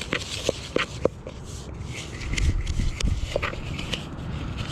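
Knife stirring and chopping a damp bait mix of panko bread, sweet corn and Jello in a cup: irregular light taps and scrapes. A low rumble swells about two seconds in.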